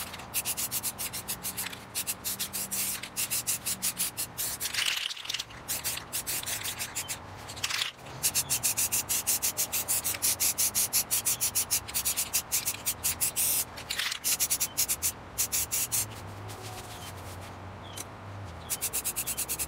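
Aerosol spray-paint can hissing in quick short bursts, about four a second, with a few longer sprays in between, as a coat of paint goes onto an airsoft rifle.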